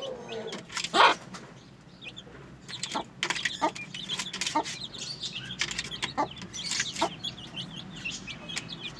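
Aseel chickens: chicks cheeping in many short high peeps, with louder clucks scattered among them, the loudest about a second in.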